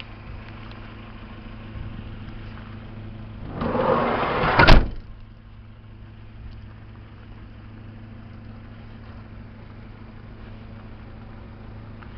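Mazda Bongo van's sliding side door rolled shut along its track for about a second, ending in a sharp slam as it latches. Under it, the van's L8 engine idles with a steady low hum.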